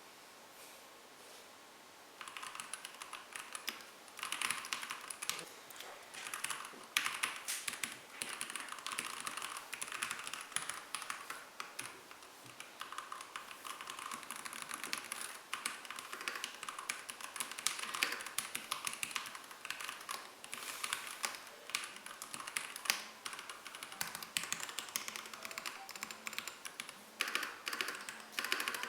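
Typing on a Keychron K2 Pro mechanical keyboard with an aluminium frame and Keychron K Pro Brown tactile switches: a fast, continuous run of key clicks that starts about two seconds in, with a few short lulls.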